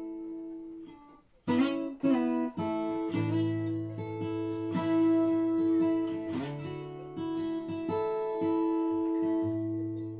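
Acoustic guitar played solo: chords picked and strummed and left to ring, with a brief stop about a second in before the playing resumes.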